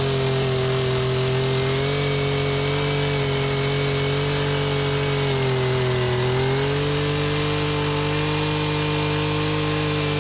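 A small engine running at a steady, fairly high speed. Its pitch sags for about a second around the middle, then recovers.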